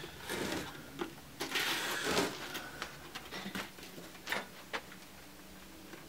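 A sheet of roofing felt rustles and scrapes against a wooden birdhouse roof as it is handled and folded over the edge, along with several light clicks and taps. The rustling is busiest in the first couple of seconds.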